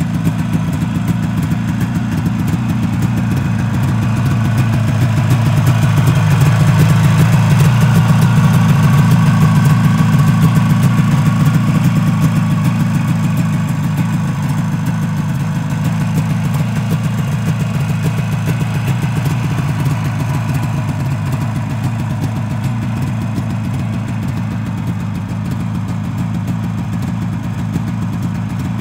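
1973 Harley-Davidson 440 snowmobile's two-stroke twin-cylinder engine idling steadily. It grows louder about five seconds in and eases back down after about twelve seconds.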